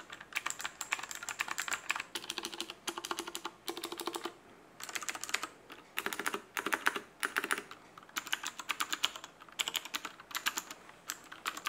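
Typing on a Cherry MX Board 1.0 TKL mechanical keyboard with clicky Cherry MX Blue switches: quick runs of crisp, loud clicking keystrokes with a couple of short pauses.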